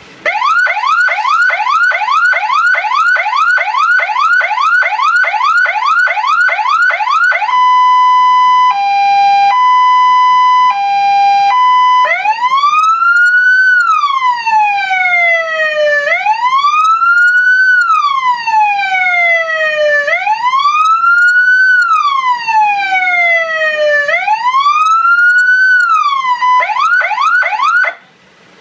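Senken CJB 100-watt electronic vehicle siren cycling through its tones. It opens with a fast yelp of about three sweeps a second, then switches to a two-tone hi-lo that alternates about once a second. Next comes a slow wail rising and falling about every four seconds, then a brief fast yelp again before it cuts off near the end.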